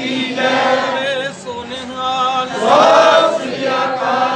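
A group of voices chanting together in a devotional chant, long held notes that slide in pitch and swell about three seconds in.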